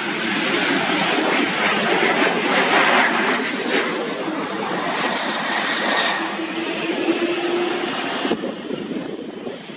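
Jet airliner engines running loud and steady as an aircraft passes, with a faint steady whine showing about two-thirds of the way in. The sound drops off sharply near the end.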